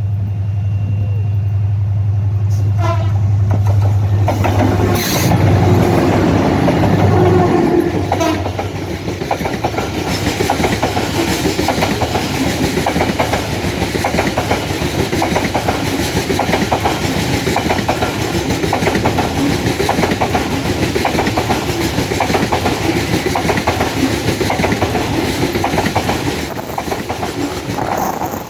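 Long Babaranjang coal train passing: a diesel locomotive's steady low drone for the first several seconds, loudest about five to eight seconds in. Then a long string of coal wagons rolls by with a steady rhythmic wheel clatter over the rail joints.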